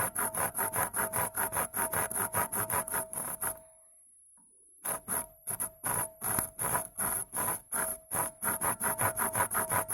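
Back-and-forth cutting at the glass bulb of an LED filament bulb: quick, even scraping strokes, about five a second, with a ringing tone in each stroke. The strokes pause for about a second just before the middle, then resume.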